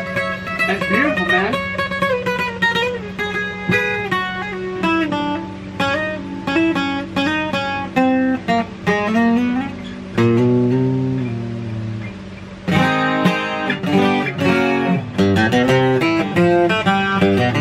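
Takamine JJ 12-string acoustic guitar played solo: quick picked single-note runs with chords, a chord left ringing about halfway through, then a busier, strummed passage near the end. The guitar has just been set up with very low action and plays clean, with no fret buzz.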